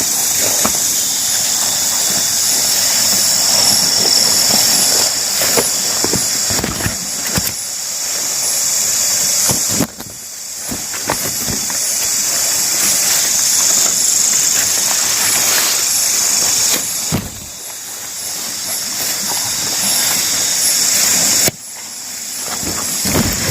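Loud, steady high-pitched drone of a cicada chorus, with irregular footsteps and brush rustling on a trail; the drone drops away sharply a few times and builds back.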